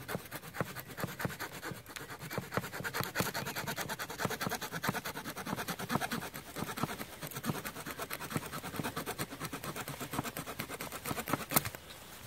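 A small saw blade from a military folding shovel tool kit sawing through a thin green branch in quick back-and-forth strokes. The strokes end near the end with a sharp snap as the branch is cut through.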